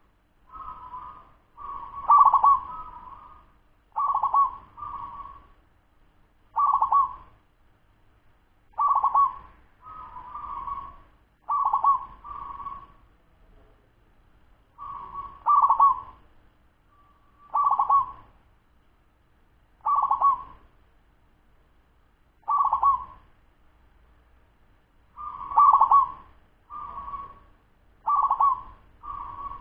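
A young zebra dove (perkutut) of the fast-singing local type cooing: short, quick cooing phrases, often in pairs, one every one to two seconds, with a few brief pauses between runs.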